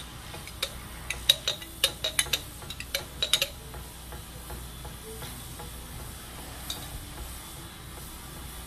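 Metal spoon clinking and scraping against a glass jar of minced garlic as garlic is spooned out: a quick run of sharp taps over the first three and a half seconds, then they stop.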